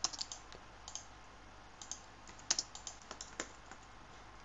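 Computer keyboard typing: faint, irregular keystrokes in short clusters, with two sharper clicks in the second half.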